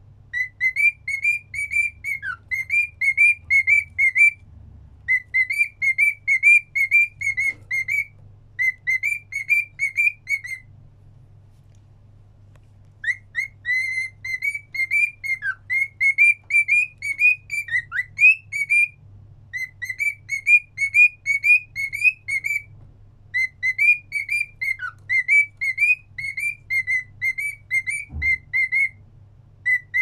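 Cockatiel whistling a tune: quick runs of chirpy whistled notes in phrases a few seconds long, with short breaks between them and one pause of about two seconds a third of the way in.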